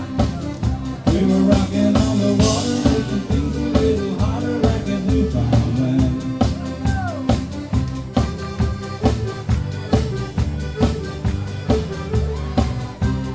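Live rock band playing an instrumental break: a steady drum-kit beat under bass and electric guitar, with bent, gliding lead notes.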